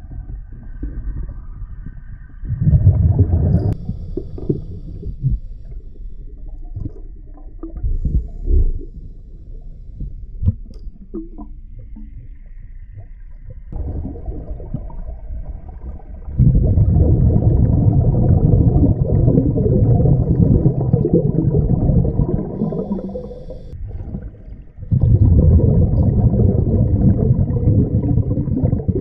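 Underwater sound of scuba regulator exhaust bubbles: low bubbling rumbles, a short burst a few seconds in and two long ones in the second half, with quieter murky underwater noise between.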